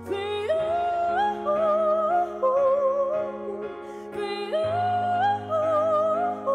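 Female singer's wordless vocal ad-lib: the voice slides up into long held notes with a wide vibrato, in two phrases, over sustained backing chords.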